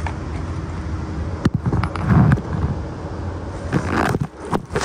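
Handling noise on a shooting-range bench: a few knocks and scraping clunks as gear and the camera are moved, over a steady low hum.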